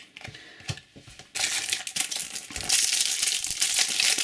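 Foil trading card pack crinkling in the hands as it is torn open, a dense crackle starting about a second and a half in, after a few light clicks.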